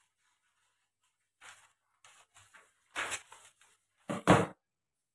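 Paper pattern sheets rustling softly as they are handled. About four seconds in, two sharp knocks come as a pair of scissors is set down on the wooden surface.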